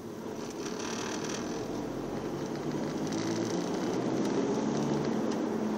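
Car engine and road noise heard inside the cabin, a steady hum that grows gradually louder as the car picks up speed.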